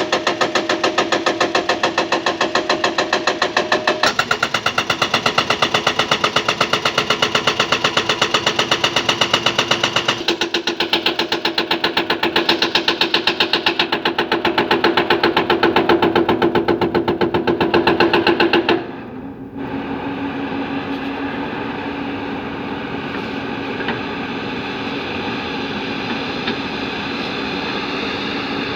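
Diesel engine of heavy earthmoving machinery (bulldozer or backhoe) running with a fast, even clatter. The sound changes abruptly a few times, and about two-thirds through it drops to a quieter, steadier hum.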